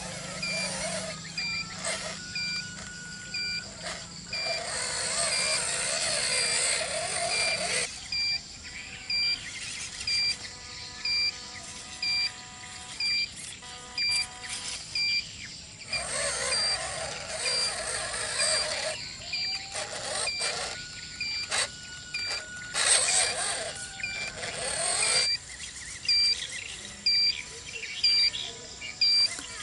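Small electric RC truck driving, its motor and gears whirring in stretches that start and stop. Under it runs a short high beep, about once a second.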